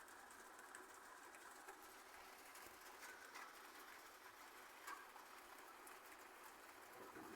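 Near silence: faint steady background hiss with a few soft scattered ticks.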